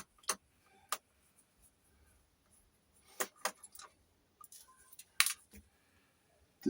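A scattering of short, sharp clicks and light taps, about seven in all and the loudest about five seconds in, from small tools and parts handled while a laptop is being taken apart.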